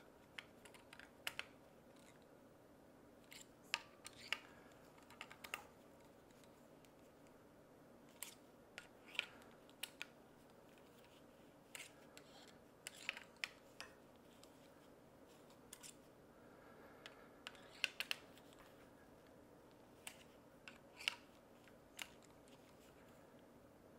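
Small metal clicks and ticks from a hand-turned hex driver tightening the bolts of a golf-cart motor's electromagnetic brake. They come irregularly, one or two at a time, over a quiet room tone.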